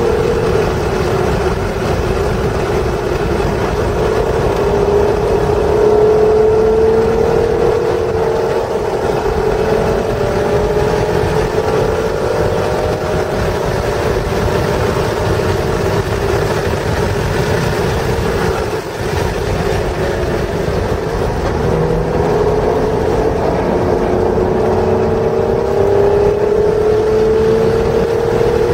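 1996 Acura NSX's stock 3.0-litre V6 under hard acceleration on track, heard from inside the cabin. Its pitch climbs in long glides and drops back between them as it works through the gears, over steady road and wind noise. The level dips briefly about two-thirds through, then the engine pulls up in pitch again.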